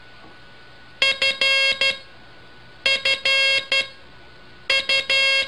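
Morse code sent as a buzzy tone keyed on and off over steady hiss. The same short group of dots with one dash comes three times, about two seconds apart.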